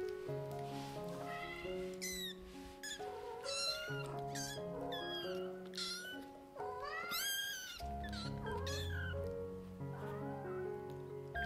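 Hungry young kittens mewing again and again, high calls that rise and fall, impatient for their turn at the milk bottle. Background music with sustained notes plays underneath.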